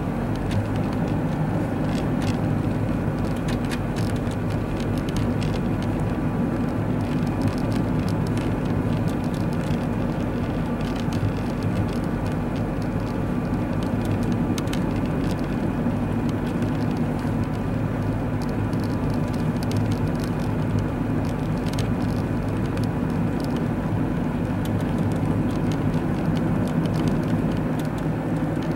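Car driving on a snow-covered road, heard from inside the cabin: a steady hum of engine and tyres, with scattered light ticks.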